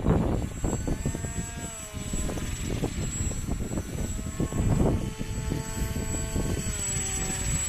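The motor and pusher propeller of a model RC autogyro whine, twice stepping down in pitch as the throttle comes back, while strong gusty wind buffets the microphone and drowns it out much of the time.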